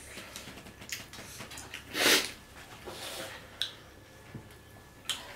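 People eating by hand at a table: scattered small clicks and taps, with one short, loud breathy sniff through the nose about two seconds in and a fainter one a second later.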